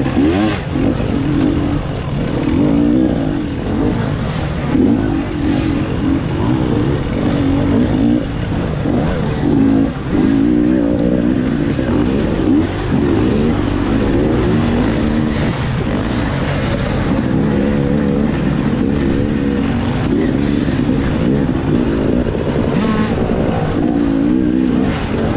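Dirt bike engine heard from on board the bike, revving up and down over and over as the rider works the throttle through a rough dirt trail.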